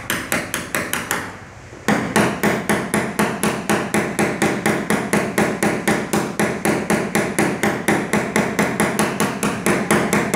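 Rapid light hammer taps on a tap-down punch held against a car roof panel during paintless dent repair, knocking the metal down. A short run of taps, a brief pause about a second and a half in, then steady tapping at about five taps a second.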